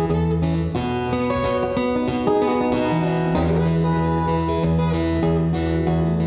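Solo acoustic guitar playing an instrumental passage: picked notes moving over held bass notes.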